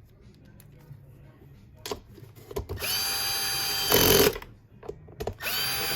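Cordless screwdriver or drill driving screws into a vacuum cleaner's cover: two runs of about a second and a half each. In each, the motor whine rises quickly to a steady pitch and ends in a louder rattle as the screw seats.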